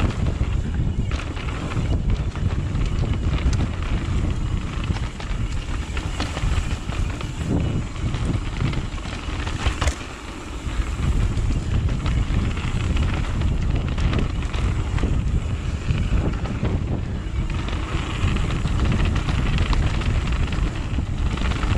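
Mountain bike riding fast down a rough trail: wind rushing over the microphone, with tyre rumble and short rattles and clicks from the bike over bumps.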